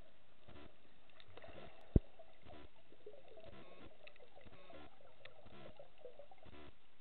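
Underwater ambience picked up through a camera in a waterproof housing: muffled water movement with irregular faint clicks and crackles, and one sharp thump about two seconds in.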